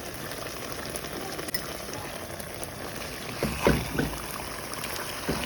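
Lamb shanks frying in a pot, a steady sizzling hiss, with a few short knocks a little past halfway.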